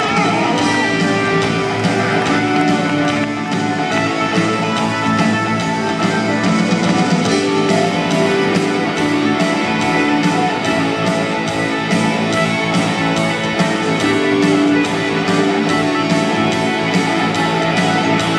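Live symphonic rock band playing loudly in an arena, recorded from the crowd, with electric guitar over a full band. A steady beat comes in about six seconds in.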